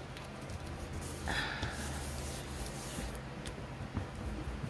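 Faint handling sounds of a sticker being pressed down and rubbed onto a clear plastic bag, with a brief hissing rush about a second in, over a low steady hum.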